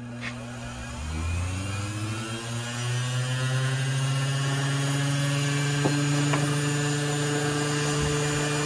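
Small bench grinder switched on, its motor hum rising in pitch as it spins up over the first few seconds, then running at steady speed while knife parts are held to the wheel to clean them. A couple of faint ticks about six seconds in.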